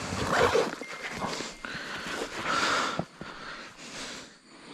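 Rustling and handling noise from a backpack being closed and from moving through dry leaf litter and brush, coming in several short noisy bursts.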